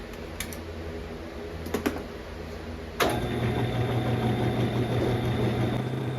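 Metal lathe set up to turn out the centre hole of a brake drum: a few light clicks, then about halfway through a louder steady machine hum starts suddenly and runs on.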